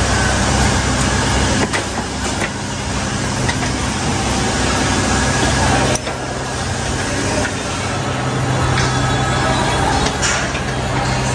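A steady mechanical hum, with a few sharp metal clinks as a suspension arm is worked into place under the car.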